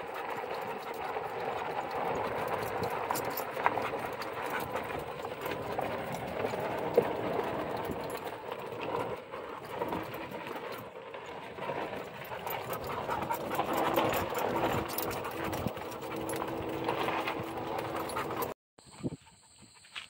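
Golf cart rolling slowly along a gravel road, tyres crunching on the stones, with a leashed dog panting as it runs alongside. Near the end the sound cuts off abruptly to a much quieter scene with a steady high-pitched tone.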